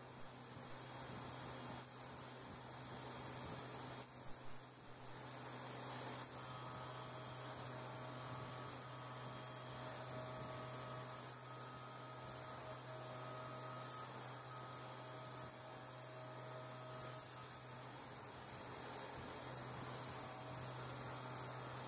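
CNC vertical milling machine running a small end mill through the trigger opening of a sheet-metal receiver: a steady high whine over a low hum, with a fainter cutting tone that comes and goes through the middle.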